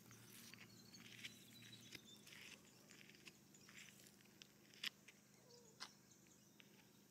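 Near silence: faint outdoor ambience with a few soft scattered clicks and rustles.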